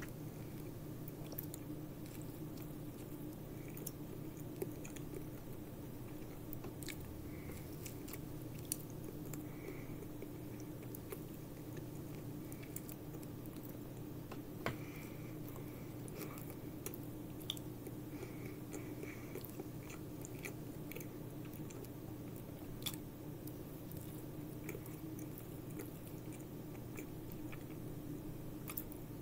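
A person chewing and biting into a beef hamburger close to the microphone: scattered soft mouth smacks and clicks, a few sharper ones, over a steady low hum.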